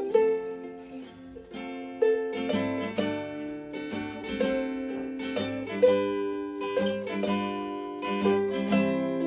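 Instrumental introduction on plucked acoustic string instruments: single picked melody notes at first, then a fuller picked accompaniment with lower notes joining about two seconds in.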